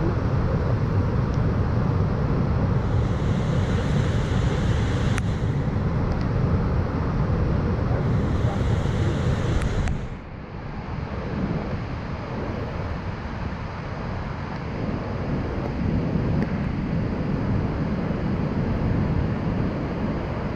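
Steady roar of a large waterfall, Niagara's Horseshoe Falls, mixed with wind buffeting the microphone. The sound changes abruptly and drops slightly in level about halfway through.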